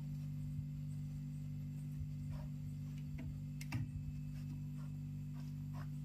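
Steady low hum that does not change, with a few light clicks and taps scattered through it, the loudest a short double tap a little under four seconds in.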